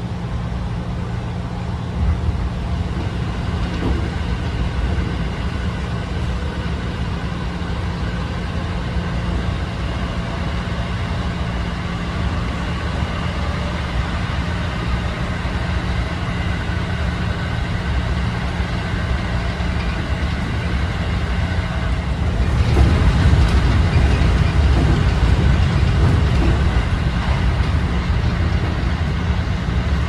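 Running sound of a JR 211 series electric train heard from inside the passenger car: a steady low rumble of wheels on rails with faint steady tones over it. The noise grows louder about three-quarters of the way through.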